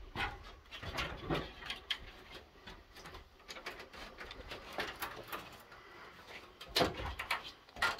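A person shifting about on a rocky mine floor: irregular light scuffs, clicks and knocks, with a couple of louder thumps near the end.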